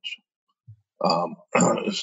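A man's voice speaking: a short pause in dead silence, then speech resumes about a second in.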